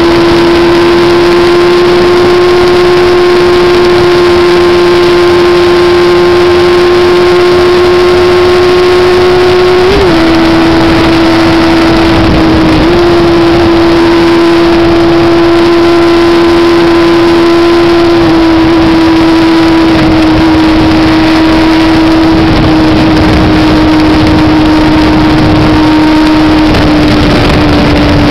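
MV Agusta motorcycle engine holding steady high revs at highway speed, mixed with heavy wind rush. The engine note dips briefly twice around the middle and eases slightly lower toward the end.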